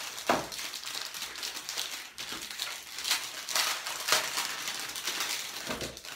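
Plastic packaging crinkling and rustling in the hands as the parts of a slime-making kit are unwrapped, with a few sharper crackles.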